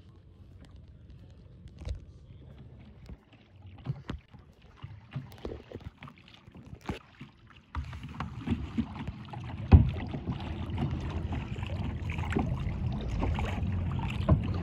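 Sit-on-top plastic kayak being paddled: scattered knocks and splashes of the paddle against the hull and water. About eight seconds in the sound turns into a louder, steady rush of wind and water, with paddle knocks going on through it and one sharp knock soon after.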